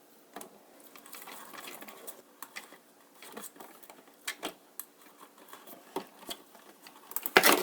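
Hands handling a hard-plastic RC truck body and its LED wiring: irregular clicks, taps and rustles, with a loud clatter of clicks near the end.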